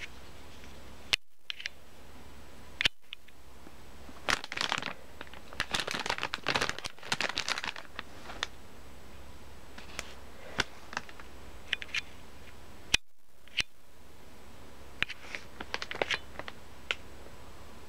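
Plastic toy packaging being handled, crinkling and rustling in bursts with scattered sharp clicks, heaviest about four to eight seconds in and again near the end.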